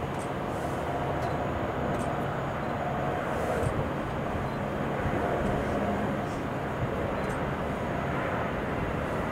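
Jet engines of an Airbus A321neo, Pratt & Whitney geared turbofans, running steadily at low power as the airliner comes in on short final and lands, heard from a distance as an even rumble.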